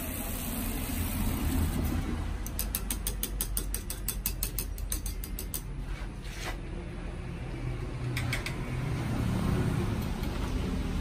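Handheld milk frother running in a stainless steel mug, with a fast ticking rattle of about eight ticks a second for a few seconds, then a few separate clicks.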